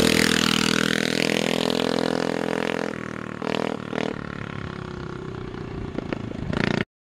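Coleman CT100U mini bike's small single-cylinder engine running steadily, getting quieter about three seconds in, with a few sharp clicks; the sound cuts off abruptly near the end.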